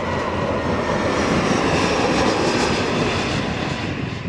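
Airliner passing by, its engine noise swelling to a peak near the middle and fading toward the end.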